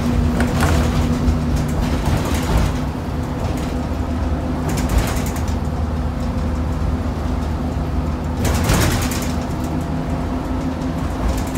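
RTD city bus under way, heard from inside the cabin: the engine runs with a steady low hum under road noise, with a few short bursts of noise along the way.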